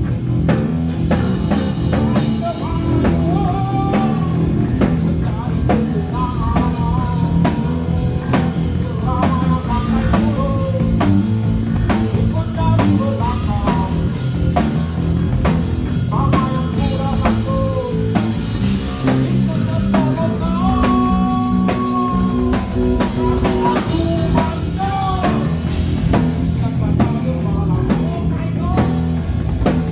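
Rock band playing live: a male singer sings over a drum kit keeping a steady beat, with electric guitar and bass guitar.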